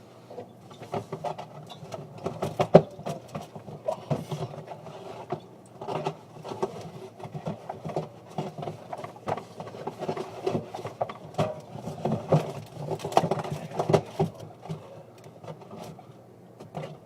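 Irregular knocking, clinking and scraping of bottles and items being handled and moved about inside a refrigerator, heard up close from inside it, over a steady low hum.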